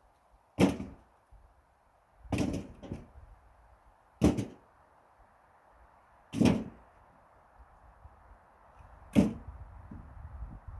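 Pine firewood logs knocking heavily: five separate thuds roughly two seconds apart, the second one doubled.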